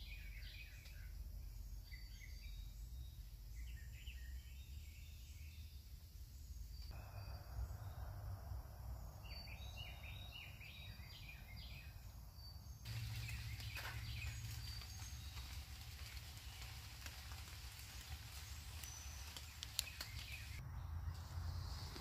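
Faint woodland ambience: birds chirping here and there over a low steady background rumble, with a few soft clicks in the second half.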